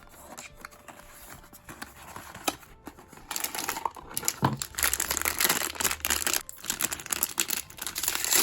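Blind-box packaging being handled and opened: a few light taps and rustles, then from about three seconds in, steady crinkling and tearing of the wrapper.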